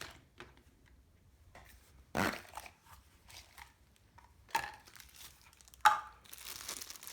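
Small metal lathe parts and tools being handled and set down on a bench: three separate clunks, then plastic wrapping crinkling near the end.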